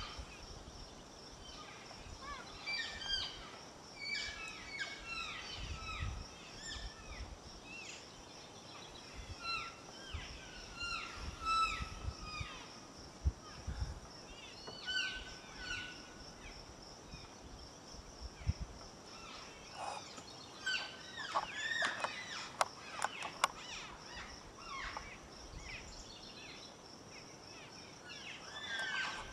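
Wild birds chirping and singing, many short calls, several of them falling in pitch, with a denser run of sharp calls about two-thirds of the way in. Occasional low rumbles underneath.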